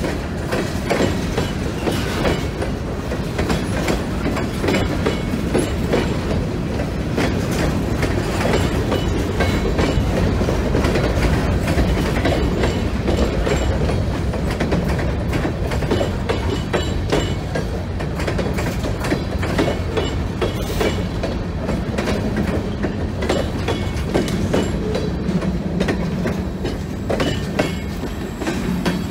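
Covered hopper cars of a freight train rolling past, steel wheels clicking over the rail joints with a steady low rumble.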